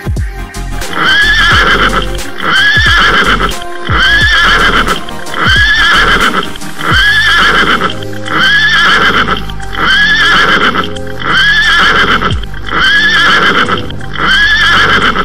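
A horse whinny repeated about every second and a half, looped evenly over a music track with deep falling bass notes.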